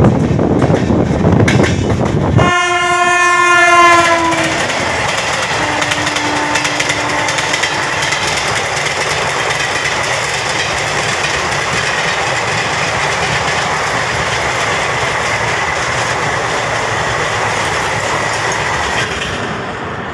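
Loud rushing wind and rail noise from a fast-moving passenger train heard at an open coach door. A train horn then sounds for about two seconds, its pitch sagging slightly as it ends, followed by a fainter, lower horn note. After that comes the steady running noise of the train at speed, with a faint high whine.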